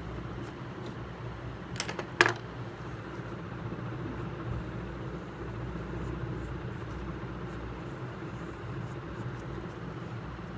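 Graphite pencil drawing on paper, with faint scratchy strokes over a steady low background hum. Two sharp clicks come about two seconds in.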